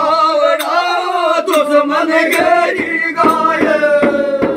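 Group of men singing a Holi dhamal folk song in chorus, with occasional strikes on a chang, a large hand-played frame drum. Near the end one long note is held and slides slightly down.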